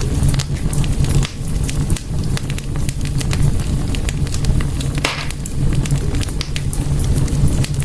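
Wood fire in a fireplace crackling, with many small sharp pops and snaps over a steady low roar of the flames. A short hiss about five seconds in.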